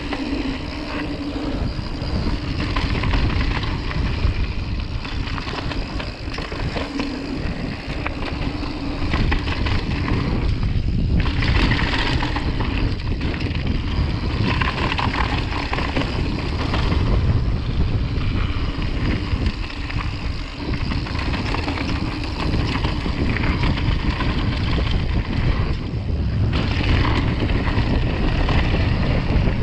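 Wind buffeting the action camera's microphone over the steady rolling noise of mountain bike tyres on a dirt and gravel trail at speed, with a few brief louder, hissier stretches.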